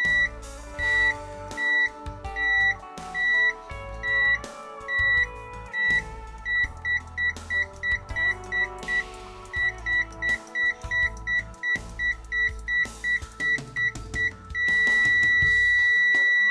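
Richmeter 777 multimeter's continuity buzzer giving a short high beep each time the test probe tips touch: slow at first, then about two beeps a second. Near the end it becomes one steady tone as the tips are held together, showing a closed circuit. Background music with drums plays throughout.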